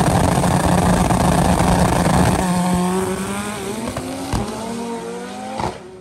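Chevette drag car launching from the start line at full throttle. Its engine note then climbs in pitch and fades as the car runs away down the drag strip, with a sharp crack about four seconds in.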